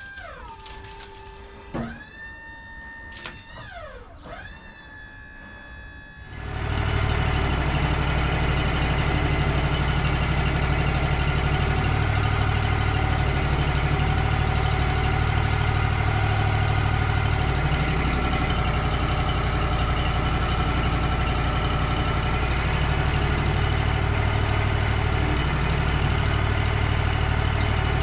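Sliding, siren-like musical tones for the first six seconds, then the Wood-Mizer LT35 sawmill's engine comes in abruptly and runs steadily and loudly.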